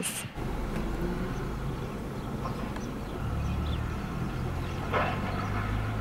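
Low, steady rumble of a motor vehicle's engine running nearby, growing louder a little after halfway, with a brief noise about five seconds in.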